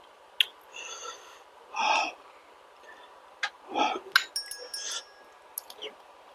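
Close-miked eating sounds from a person eating balut: two or three short breathy slurps and scattered sharp mouth and utensil clicks, with a brief light clink about two-thirds of the way through.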